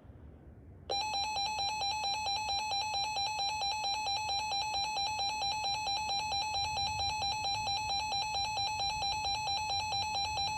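Emergency Alert System attention signal: a loud, steady two-tone alarm that starts about a second in and holds for about ten seconds, announcing a flash flood warning.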